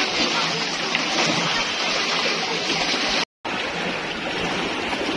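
Muddy floodwater flowing fast, a steady rushing hiss of moving water. It cuts out for a moment about three seconds in.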